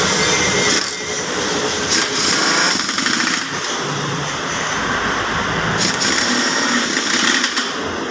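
A power tool running in stretches of a second or two, with steady hiss across the whole range and brief stops and restarts.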